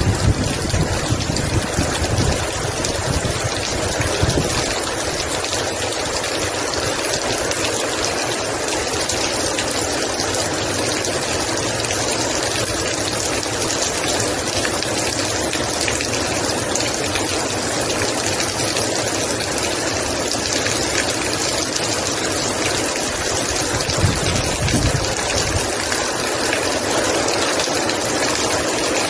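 Heavy rain pouring down steadily in a dense, even hiss. There are brief low rumbles near the start and again about 24 seconds in.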